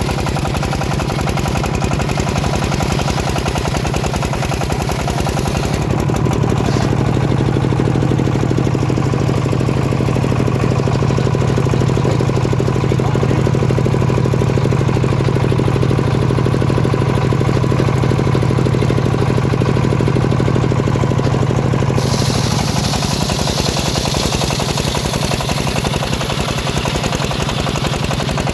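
Engine of a homemade sawmill rig running steadily. Its hum turns deeper and heavier about six seconds in and goes back to its earlier sound at about twenty-two seconds.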